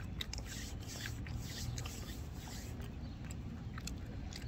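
Faint chewing of a mouthful of breaded fried mozzarella fries: small scattered clicks and crunches, over a low steady rumble.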